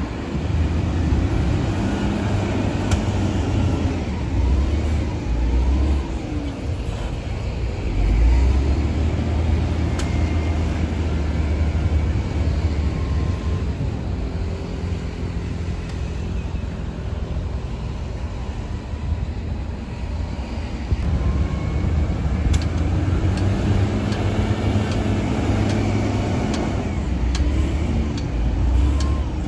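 Heavy diesel engine of a Shantui DH17-C2 bulldozer working steadily, its note rising and falling with the load, with scattered metallic clicks and clanks.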